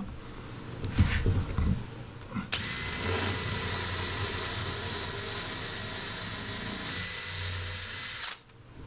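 Cordless drill running steadily with a 3/8-inch Forstner bit, boring out an old screw hole in varnished wood through a guide block. It gives a steady high whine for about six seconds, then stops suddenly near the end. A few soft knocks come before it starts.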